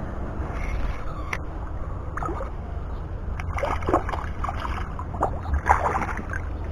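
Water sloshing and splashing with a few short splashes or knocks, over a steady low rumble.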